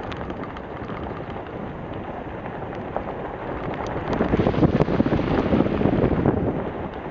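A vehicle's tyres crunching and crackling over the loose gravel and rocks of a rough dirt road, with the vehicle's own running noise underneath; the noise grows louder about four seconds in.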